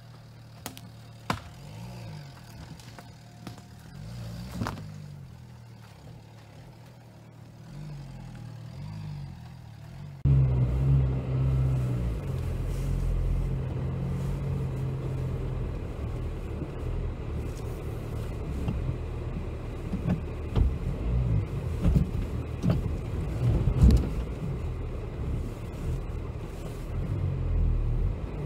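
Dacia Duster's engine running as the SUV crawls over a bumpy dirt trail. At first it is faint, its pitch rising and falling, with a couple of sharp clicks. About ten seconds in it turns much louder as heard on board: a steady low rumble with scattered knocks and thumps from the rough ground.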